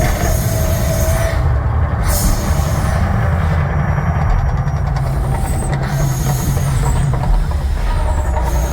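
Mirage Volcano eruption show: a loud, steady deep rumble with hissing surges every few seconds.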